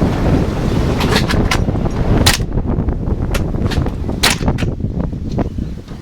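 Tokyo Marui gas blowback airsoft rifle firing a string of single shots at uneven intervals, each a sharp crack, with strong wind buffeting the microphone underneath.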